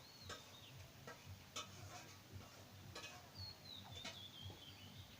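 Near silence, with a few scattered faint clicks and a thin, wavering bird call that slowly falls in pitch about three and a half seconds in.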